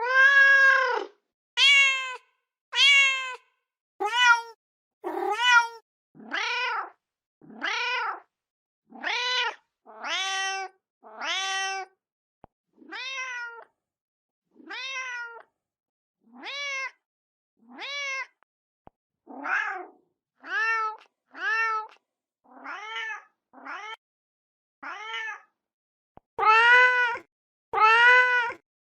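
Mother cat meowing over and over, calling for her kittens: a long run of short meows about one a second, each rising and then falling in pitch. The calls are louder and longer near the start and again near the end.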